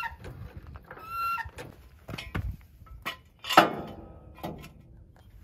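A steel jack stand is set under a trailer tongue: scattered knocks and scrapes, with one loud metal clank about three and a half seconds in. A chicken clucks briefly about a second in.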